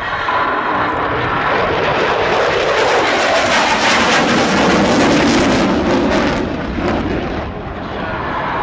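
Jet aircraft flying past during an air power display. The engine noise builds to a peak about halfway through, then fades somewhat near the end.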